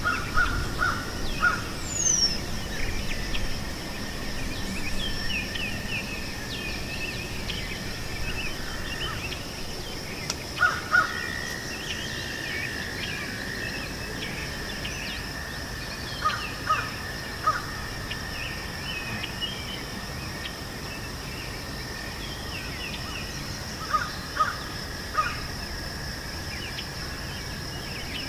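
Outdoor meadow ambience: a bird calls loudly in sets of two or three, four times, over a steady high-pitched drone and many faint, quick chirps of small birds.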